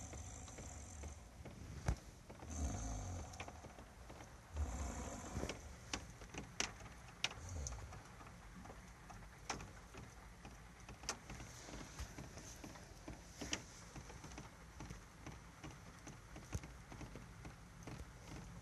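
A man snoring loudly in his sleep: rasping snores every two seconds or so in the first half, fainter breaths later, with scattered sharp clicks throughout.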